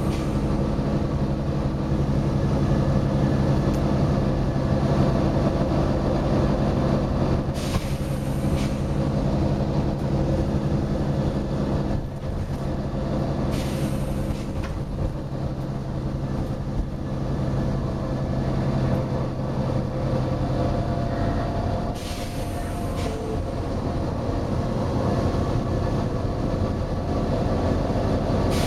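Volvo B9TL double-decker bus's diesel engine running steadily, its note changing about two-thirds of the way through. Three short bursts of compressed-air hiss from the bus's air brakes and suspension break through, about 8, 14 and 22 seconds in.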